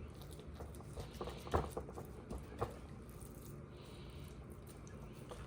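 Handfuls of raw ground rabbit being dropped and pressed into a muffin tin: faint soft pats and a few light clicks, the loudest about a second and a half in.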